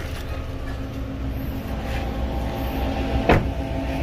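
Mitsubishi Triton pickup door shut once with a single sharp thump about three seconds in, over a steady low hum.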